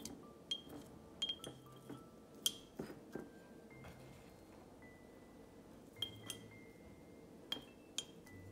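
Chopsticks clinking against a glass jar as melon slices are packed in: about a dozen sharp, ringing clinks, bunched in the first three seconds, then a pause, then a few more about six and eight seconds in. Soft background music with held notes plays underneath.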